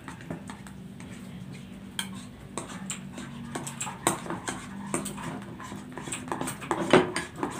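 Spatulas stirring and scraping a thick glue-and-detergent slime mixture in bowls, with irregular clicks and knocks of the spatulas against the bowls, the loudest near the end.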